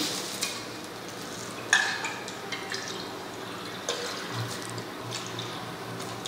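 Soil-water suspension sloshing inside a 1000 ml glass measuring cylinder as it is shaken end over end by hand, mixing soil, dispersing agent and water into an even suspension for a hydrometer test. The sloshing comes in irregular surges, the loudest about two seconds in.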